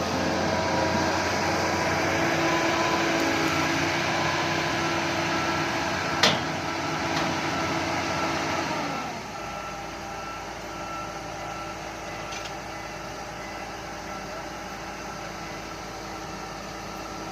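Doosan excavator's diesel engine running at working speed, then dropping to a lower, quieter speed about nine seconds in. A single sharp click sounds about six seconds in.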